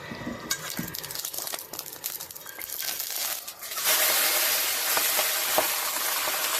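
Hot oil crackling in a pan, then a loud sizzle about four seconds in as Shanghai bok choy goes into the oil for a fast stir-fry, with a few utensil clinks.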